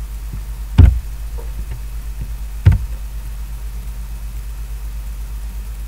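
Two sharp clicks about two seconds apart from operating the computer, over a steady low electrical hum.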